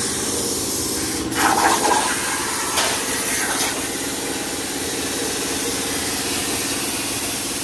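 CNC plasma cutter torch cutting sheet steel: a steady hiss of the plasma arc and compressed air over a steady low hum, with a short sharper burst about a second and a half in.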